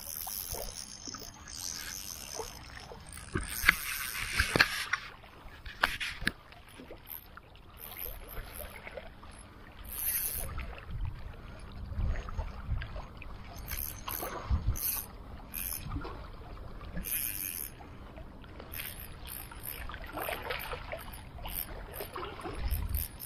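Uneven splashing and scraping noise with scattered sharp knocks, louder in several short spells.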